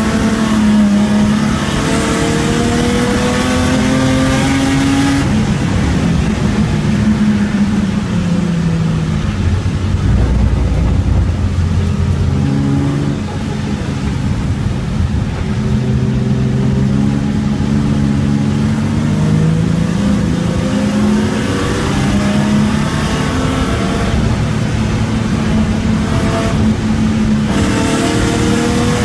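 Race car engine heard on board under hard racing: it repeatedly climbs in pitch through the revs, drops back at each gear change, and rises again, with a short easing off about halfway through.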